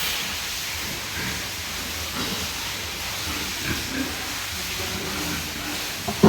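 Steady hiss of a spray, typical of a pressure washer or disinfectant sprayer hosing down pig pens, with a sudden loud sound at the very end.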